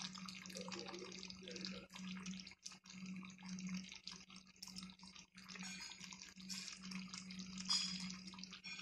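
Chicken afritada's thick tomato sauce simmering in a pot, with many small irregular bubbling pops, over a steady low hum.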